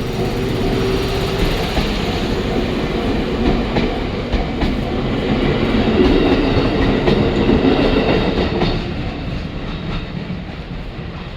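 Chichibu Railway 6000 series electric train running past the level crossing, its wheels clacking over the rail joints. The sound is loudest near the middle and dies away over the last couple of seconds as the train moves off.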